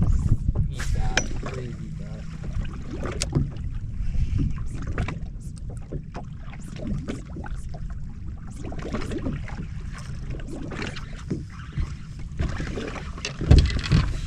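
Small waves slapping against a bass boat's hull as it rocks at drift, with wind rumbling on the microphone. A couple of louder knocks come near the end.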